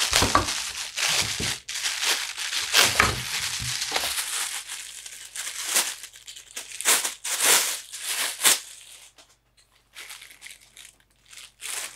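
Thin plastic wrapping crinkling and rustling as it is handled and pulled off, with a few dull knocks in the first four seconds. The crinkling runs thick for the first five seconds, then comes in separate rustles.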